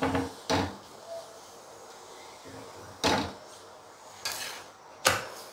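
A flat metal spatula pressing and scraping a paratha against a hot tawa: four short, sharp scrapes and taps, one just after the start and three in the last half.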